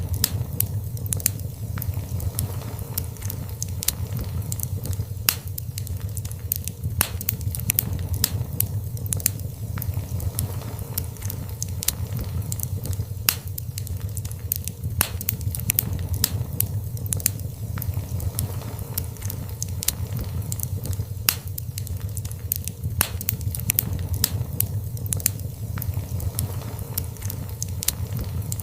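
Wood fire burning in a fireplace: a steady low rumble of the flames with frequent sharp crackles and pops at irregular intervals.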